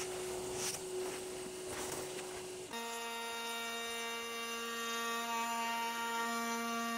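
Makita trim router running and routing out the inside of a round wooden frame, a rough chip-cutting noise over a steady motor tone. About three seconds in, the cutting noise drops away abruptly, leaving a steady, even whine.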